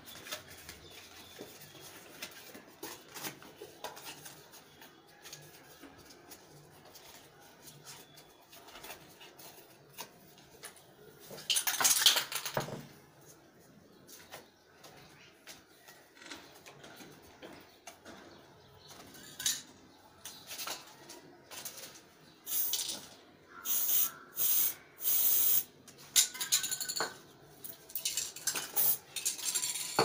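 Aerosol spray-paint can hissing in bursts: one longer burst about twelve seconds in, then a run of short bursts through the second half. Between them, paper and card being handled with light clinks.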